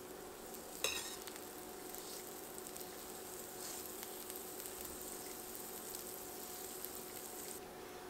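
Butter sizzling as it melts and foams in a hot stainless steel frying pan while a knife pushes it around, with one sharp click about a second in. The sizzle stops abruptly near the end.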